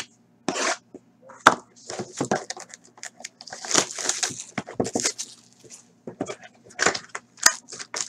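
Plastic shrink wrap crackling and tearing in quick, irregular bursts as it is stripped off a sealed trading card box, then the cardboard box being opened.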